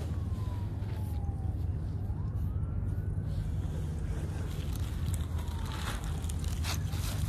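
Steady low rumble of wind on the microphone, with a faint siren wailing that slowly falls, rises and falls again. A few light clicks near the end.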